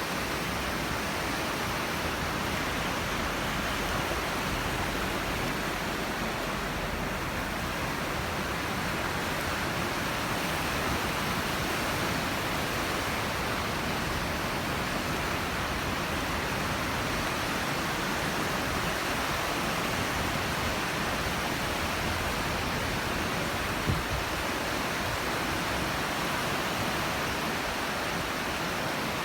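Sea surf washing onto the shore, heard as a steady, even rush of water noise, with one brief click late on.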